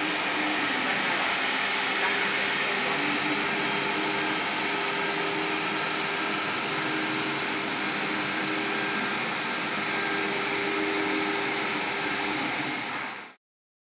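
SSG 2040ES CNC router running with no workpiece: a steady hiss from the running spindle, with a low hum from the drive motors that comes and goes as the gantry head moves across the table. The sound cuts off suddenly near the end.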